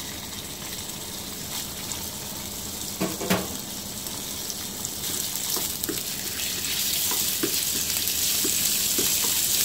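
Ground chicken sizzling in hot oil in a frying pan, the sizzle growing louder about seven seconds in as more meat goes in and is broken up. Light taps and scrapes of a slotted spatula against the pan.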